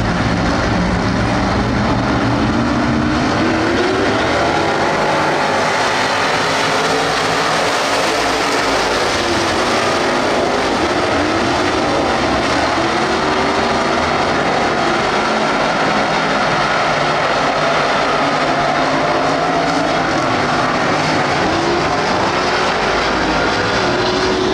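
A pack of dirt-track street stock race cars running together, their engines revving up and down in a steady loud drone as they circle the track.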